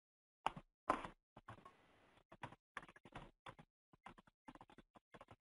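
Computer keyboard typing: quick, irregular key clicks, several a second, starting about half a second in, the first two the loudest.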